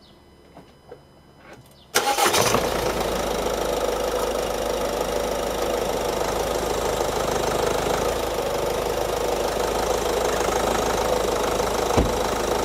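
Ford Focus 1.5 TDCi four-cylinder diesel engine starting about two seconds in after a few quiet clicks, then idling steadily. A single thump near the end.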